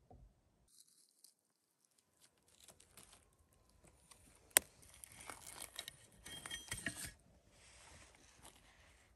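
Dry leaves, pine needles and twigs rustling and crackling as a hand pushes through forest floor litter, with one sharp snap about halfway through.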